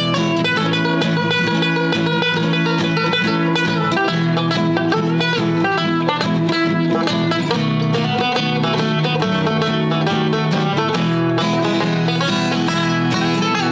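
Banjo and acoustic guitar playing an instrumental break, a steady stream of quickly picked notes.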